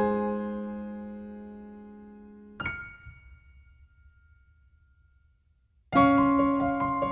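Solo piano background music: a held chord slowly fades, a single high note rings out and dies away to near silence, then the piano comes back in with a busier flowing passage near the end.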